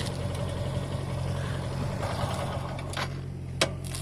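A steady low engine-like hum, with two sharp clicks near the end.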